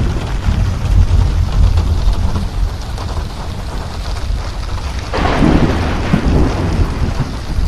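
Thunderstorm: steady heavy rain with continuous rolling thunder rumbling low, and a louder crackling thunder burst about five seconds in.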